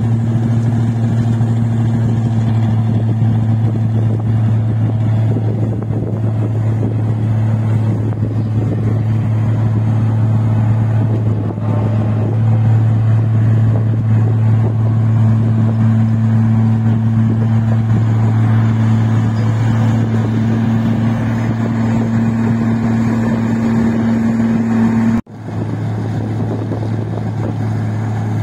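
Diesel engine of a rice combine harvester running at steady speed, a constant low drone. The sound breaks off for a moment about 25 seconds in and comes straight back.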